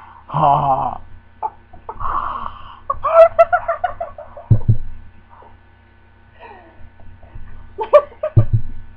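Wordless vocal noises: drawn-out shouts, wavering silly voices and laughter, in several bursts. Two low thumps break in, one about halfway through and one near the end.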